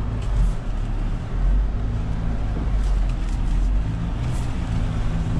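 2020 Mahindra Thar SUV's engine running at a low, steady note as it drives through deep mud.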